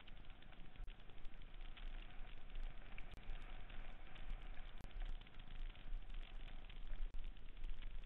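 Mountain bike riding fast down a dirt singletrack: a steady crackle of knobby tyres over dirt and forest debris, with many small clicks and rattles from the bike and a low rumble underneath.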